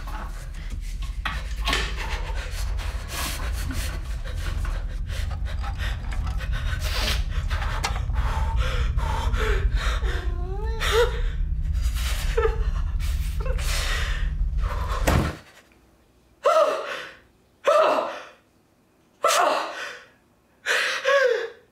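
A man gasping and panting in shock, with strained cries that slide up and down in pitch, over a deep low rumble that cuts off suddenly about fifteen seconds in. After that come about five sharp, separate gasps with quiet between them.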